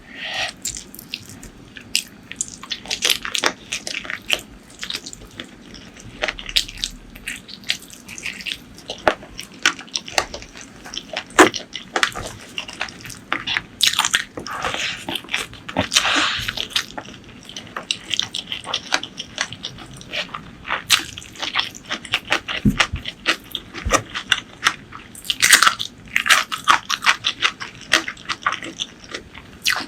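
Close-miked eating sounds: wet chewing, lip smacking and bites, with many short clicks and a few longer wet, squelchy stretches.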